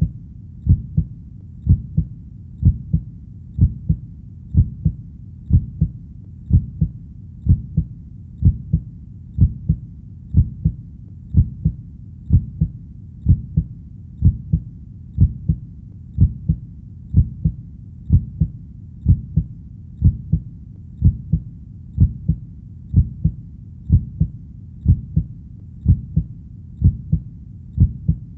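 Heartbeat, a steady double thump (lub-dub) about once a second, low-pitched and even in rhythm.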